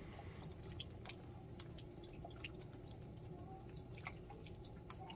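Faint steady low hum of a clothes dryer running, heard at its outside exhaust vent, with scattered soft ticks.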